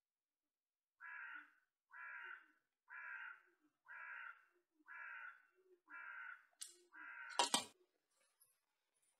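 A crow cawing seven times, about one caw a second, evenly spaced. Near the end a single sharp knock, louder than the caws, cuts in.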